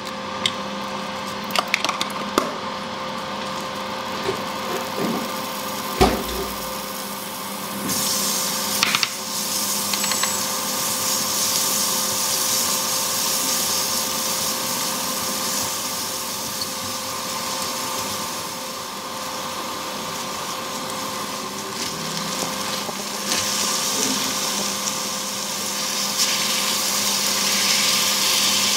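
Sliced onions sizzling in a stainless steel frying pan, stirred with a spatula that scrapes and knocks against the pan, over a steady electric hum. The sizzle picks up about eight seconds in and grows louder near the end, as sliced beef goes in.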